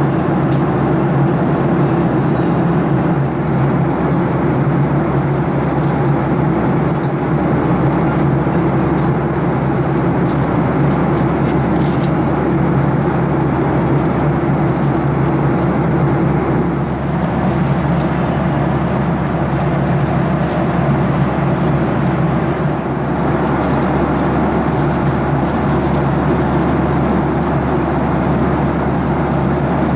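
Steady cabin noise inside a Boeing 737-800 in flight: the drone of its CFM56 engines and the rush of air past the fuselage, a low hum under an even rushing sound.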